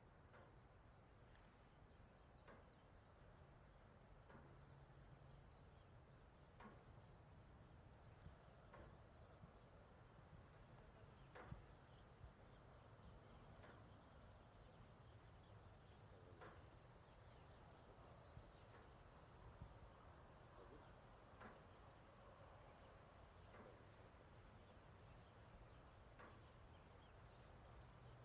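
Faint rural ambience dominated by a steady, high-pitched chorus of crickets or similar insects, with a low rumble underneath and scattered faint short chirps or ticks every few seconds.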